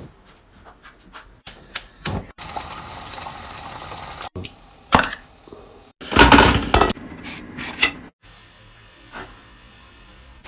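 Kitchen handling noises over several quick cuts: clicks and crinkling of a plastic food packet, then a couple of seconds of steady hiss. About six seconds in comes the loudest sound, a clatter at a four-slot pop-up toaster.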